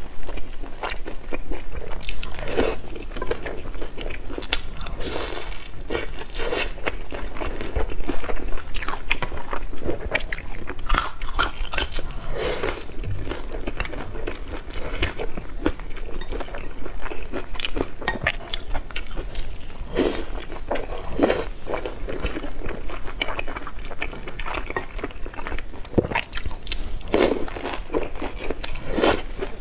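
Close-miked biting and chewing of pan-fried kimchi crystal dumplings, the fried crust crunching, in an irregular string of bites and chews.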